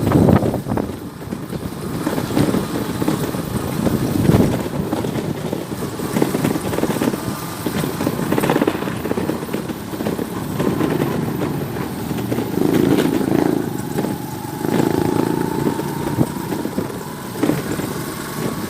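Vehicle engines and road noise in traffic, with motorcycles among them, running continuously. In the second half a faint steady whine rises slowly in pitch.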